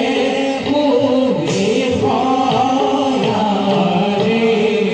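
Live Bhaona stage music through a PA system: a singing voice on long held notes over repeated hand-drum strokes that drop in pitch.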